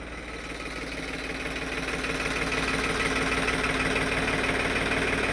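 Tractor engine idling with a fast, even chug. It grows louder over the first two seconds or so, then holds steady.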